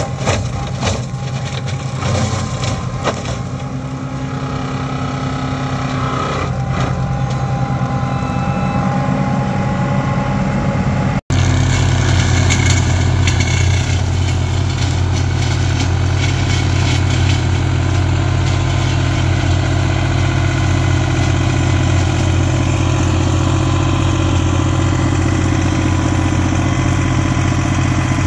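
Same Explorer II 60 Turbo tractor running steadily while driving a Maschio Giraffe L 170 flail mulcher, with scattered sharp knocks in the first few seconds.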